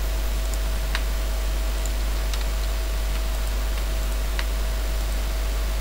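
A few sparse computer mouse and keyboard clicks, a second or more apart, over a steady low hum and hiss.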